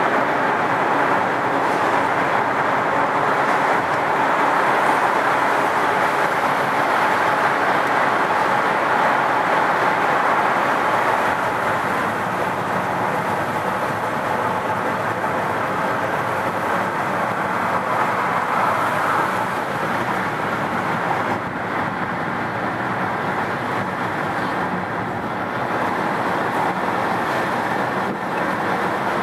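Steady road noise of a car driving at highway speed, heard from inside the cabin: tyre roar and engine mixed with passing traffic. It is a little louder for the first ten seconds or so, while the car is in a tunnel, then eases off slightly on the open road.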